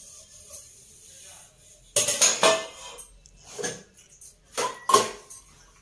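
Stainless steel utensils clattering and clanking against each other in a sink as they are scoured. There are a few sharp knocks from about two seconds in, and a louder clank with a short metallic ring near the end.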